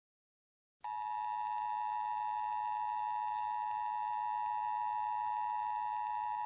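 Emergency Alert System two-tone attention signal: a steady, unwavering dual-tone alarm that cuts in sharply out of dead silence about a second in. It signals the start of a new emergency alert.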